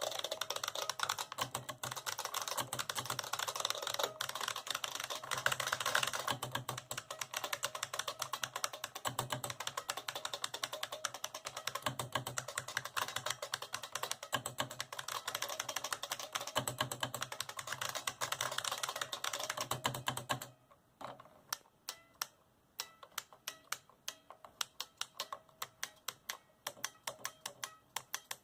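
IBM Model F AT keyboard, with buckling-spring keys over capacitive sensing, being typed on fast and continuously in a dense clatter of key clicks. About twenty seconds in the fast typing stops, and single keys are then pressed slowly one at a time, each a separate sharp click.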